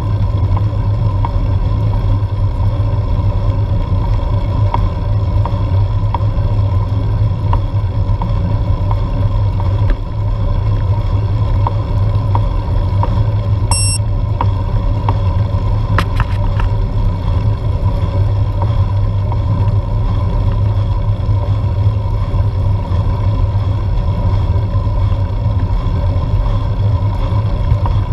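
Steady low rumble of road and wind noise picked up by a GoPro mounted on a road bike climbing at a steady pace. A short high electronic beep sounds about halfway through, followed by a few sharp clicks.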